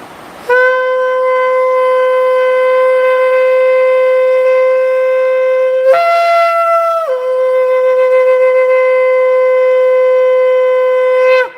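A 107 cm jumbo shofar with a small mouthpiece blown in one long, loud note that steps up in pitch for about a second midway, drops back, and then cuts off.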